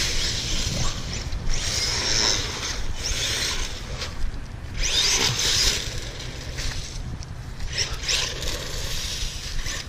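Traxxas 1/16 E-Revo electric RC truck's motor whining up and down in repeated bursts as it is driven hard across asphalt and leaves, with tyre and rustling noise.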